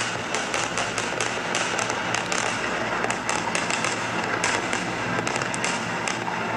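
Fireworks crackling: dense runs of small sharp pops coming several times a second, irregularly, over a steady rumbling bed.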